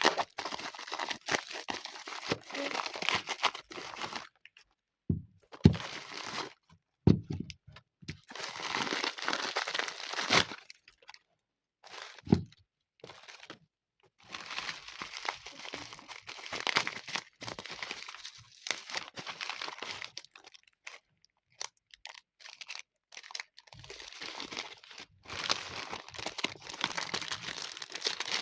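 Packaging being crinkled, crunched and torn open during an unboxing, in bursts of rustling separated by short pauses, with a few sharp clicks.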